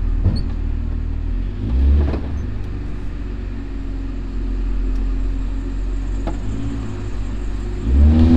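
Honda CRX's small dual-point-injected four-cylinder engine running while the car is driven, a steady low drone that swells louder about two seconds in and again near the end.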